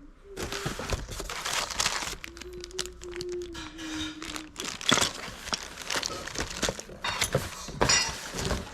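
Packaging rustling and crinkling as hands rummage through the box of parts in search of a tool, with sharp crackles throughout.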